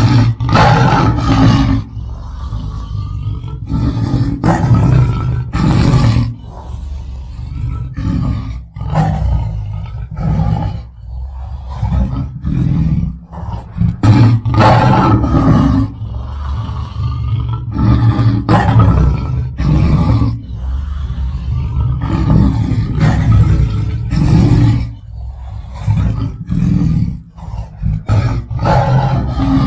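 Lion roaring over and over: a long run of deep roars, each a second or two long, with short breaks between them.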